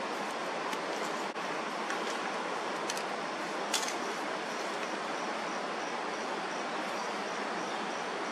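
Steady rushing background noise, with a faint, evenly pulsing high chirp from about four seconds in and a couple of soft ticks.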